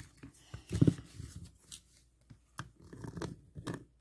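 Handling of a small cardboard blind box, with rustling, knocks and clicks, and scissors snipping at its sealed top near the end.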